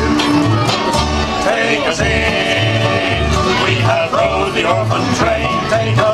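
Bluegrass band playing live: upright double bass keeping a steady beat under banjo and acoustic guitars, with the fiddle playing for the first few seconds and then dropping out.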